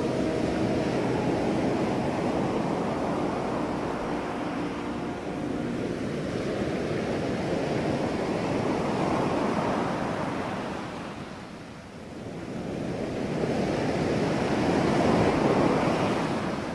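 Ocean surf washing onto a beach: a steady rush of waves that swells and recedes, easing to a lull about twelve seconds in and building again toward the end.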